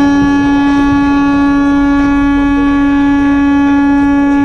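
Vehicle horn held in one long, unbroken blast on a single low, steady note.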